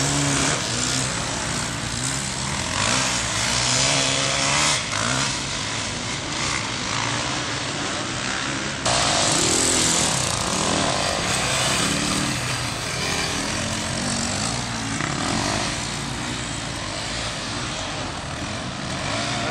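Motocross bike engines running hard on a dirt track, their pitch rising and falling as the riders rev and shift through the turns, over a steady hiss.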